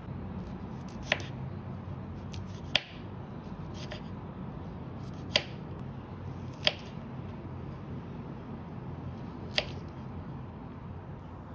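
Kitchen knife slicing through a raw broccoli stem and knocking on a wooden cutting board: five sharp clicks at uneven intervals, over a steady low hum.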